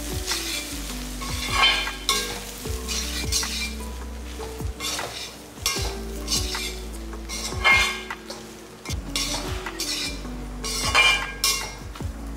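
Cooked rice and soya chunks being stirred and scraped around a pan on a low flame: irregular scraping strokes, the loudest about a second and a half in, near eight seconds and near eleven seconds, over a light sizzle. Soft background music plays underneath.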